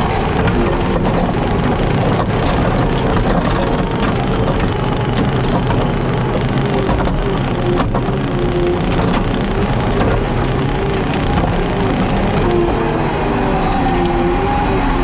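JCB Teleskid skid steer's diesel engine running steadily with a hydraulic bush hog mower, a constant heavy drone with a wavering whine over it.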